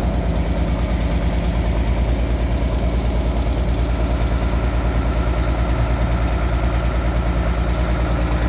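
Diesel engine of a road roller running steadily, with a rapid even throb.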